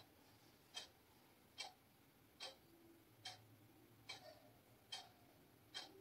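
Quiet room with a steady, even ticking, a little more than one tick a second, like a wall clock.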